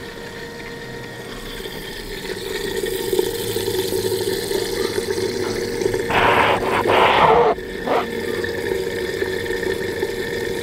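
The BMW F80 M3's electric coolant pump runs with a steady hum during the low-temperature circuit bleed, with coolant gurgling in the open reservoir as air is purged. A louder rush of noise comes about six seconds in and lasts a second and a half, with a short one just after.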